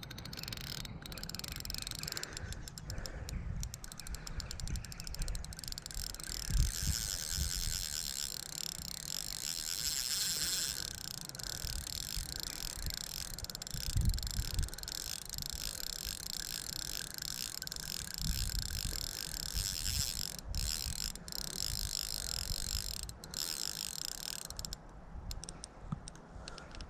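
Fixed-spool spinning reel being wound in, its gears and rotor giving a fast, steady ticking whirr that stops briefly a couple of times near the end. Irregular low rumbles sit underneath.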